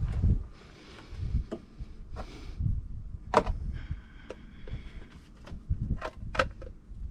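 Handling noises from the oil change: scattered sharp clicks and knocks, the loudest two a little after the halfway point and near the end, with a brief hiss early on.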